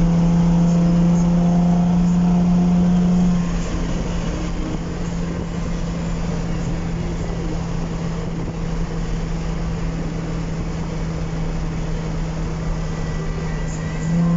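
Nissan 350Z's 3.5-litre V6 running at a steady engine speed through its exhaust, louder for the first few seconds, then quieter and even, then louder again near the end.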